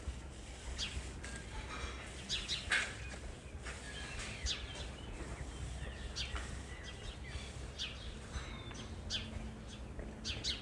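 Small birds chirping, many short quick calls sweeping downward in pitch and scattered throughout, over a steady low outdoor rumble.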